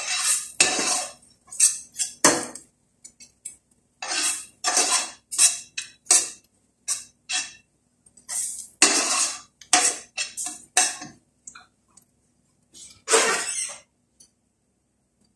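Metal spoon scraping and clinking against a steel frying pan while stirring mashed fava beans, in a run of short strokes about one to two a second. The strokes stop after one last scrape near the end.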